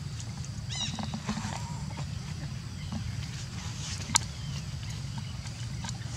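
Outdoor ambience: a steady low rumble with scattered light clicks and rustles, a short high chirp about a second in, and one sharp click a little after four seconds.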